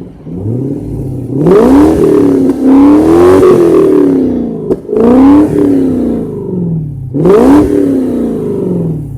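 Car engine revved hard several times, its pitch climbing and falling back with each rev, with a sharp click about halfway through.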